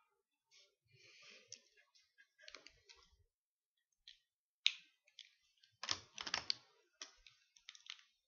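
Irregular small clicks, taps and rustles of drawing pens and markers being handled, with one sharp click about halfway through and a denser run of clicks and knocks a second later.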